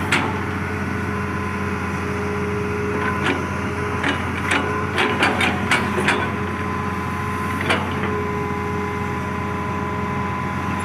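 Excavator's diesel engine running steadily with a hydraulic whine that comes and goes, overlaid by a series of sharp metallic clanks and knocks, bunched together in the middle seconds.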